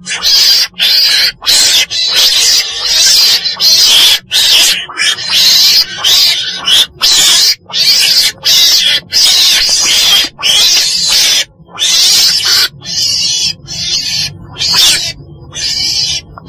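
Weasel (Mustela) calls: a fast run of short, harsh, hissy cries, about two a second, with brief gaps between them. The cries grow thinner and more broken in the last few seconds.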